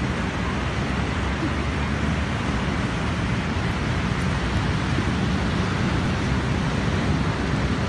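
Steady rushing noise of wind and breaking surf, even throughout with a heavy low rumble.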